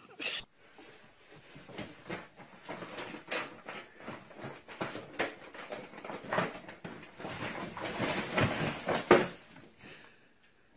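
A bag crinkling and rustling in irregular crackly bursts as a small pet scrambles in and around it on a tile floor. It dies away just before the end.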